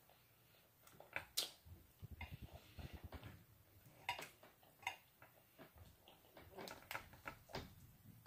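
Faint close-up eating sounds from a person eating fried chicken: a run of rhythmic chewing about two seconds in, with scattered sharp mouth smacks and clicks.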